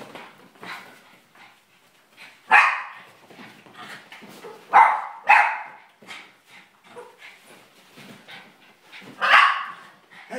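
Boston terrier barking in excited play: four sharp barks, the middle two close together, with fainter scuffling between them.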